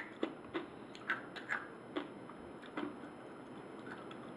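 Crunching of hard roasted crab shells being chewed: a string of short, irregular crunches and clicks, most of them in the first three seconds.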